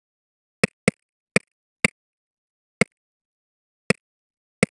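Snare drum hits played back through a transient designer: seven short, dry clicks at uneven intervals, each cutting off at once with no ringing body.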